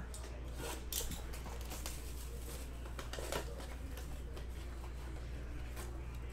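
Light rustling and a few brief crinkles and clicks from handling and opening a Panini Court Kings basketball-card blaster box and its packs, over a steady low hum.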